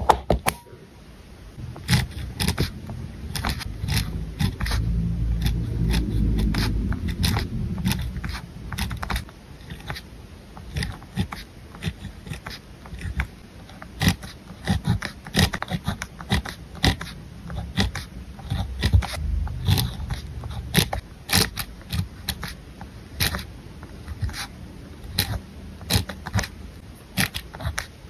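Gel pen writing on lined paper, heard close up: quick scratchy strokes and ticks of the tip on the page, several a second. A low hum runs underneath for several seconds starting about two seconds in, and briefly again later.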